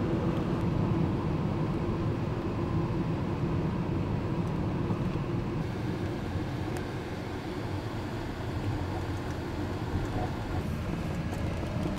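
Steady engine and road-noise rumble inside a moving car's cabin.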